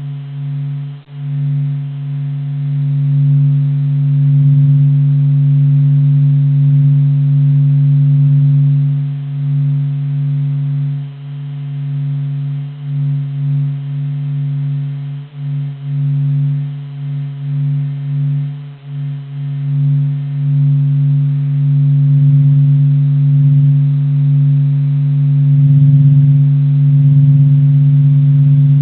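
Data sonification of the Sun: a steady low hum with a few fainter higher tones above it, swelling and dipping in loudness.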